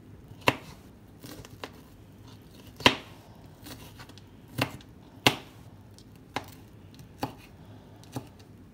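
Kitchen knife chopping bell pepper on a thin plastic cutting board: about nine sharp, separate knocks at an uneven pace.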